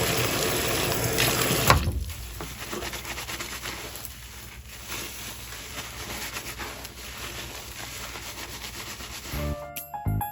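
Running water that stops suddenly about two seconds in, followed by faint rubbing and handling sounds; piano music begins near the end.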